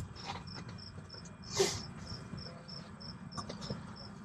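Crickets chirping in a steady, even rhythm, about three short high chirps a second. A brief rustle cuts across them about one and a half seconds in.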